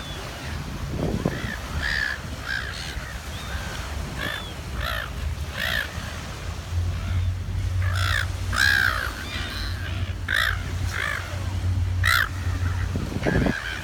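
Seagulls squawking in a flock, many short harsh calls overlapping, busiest in the middle and latter part, as the birds squabble. A low steady hum runs underneath, stronger from about halfway.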